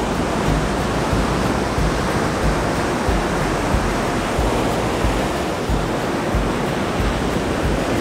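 Ocean surf breaking on a sandy beach: a steady wash of waves with a deep, pulsing rumble underneath.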